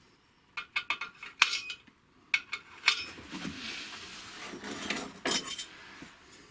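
Allen keys clinking and rattling against metal as they are handled and slotted into a tool holder. There is a quick run of sharp clicks in the first three seconds, then a scraping rustle with a few more clinks.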